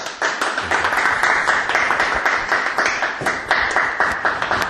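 Audience applauding: many people clapping at once, a dense, steady patter of hand claps.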